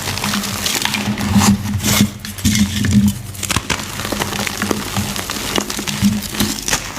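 Reformed gym chalk being crushed, crumbling with many small irregular crackles and soft crunches. A steady low hum runs underneath.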